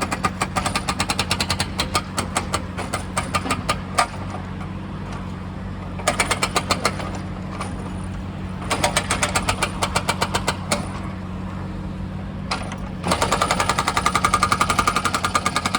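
Excavator-mounted hydraulic breaker hammering in bursts of rapid, evenly spaced blows. It stops and starts several times, over the steady running of the excavator's engine, and hammers without a break near the end.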